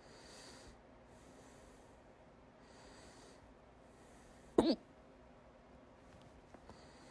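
A person's hiccup: one loud, sudden "hic" about four and a half seconds in, with a short voiced catch. Soft breaths come and go about every second and a half around it.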